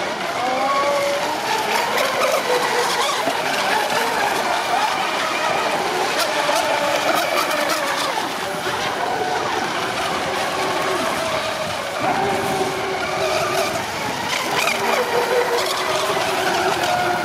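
Several radio-controlled catamaran race boats running at speed, their motors whining and rising and falling in pitch as the throttle changes.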